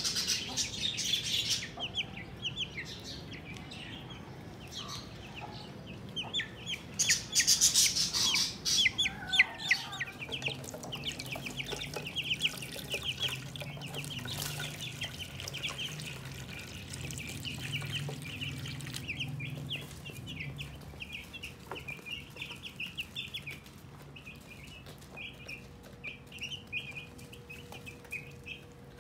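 Young broiler chicks peeping continuously, many short high cheeps overlapping, loudest about seven to nine seconds in.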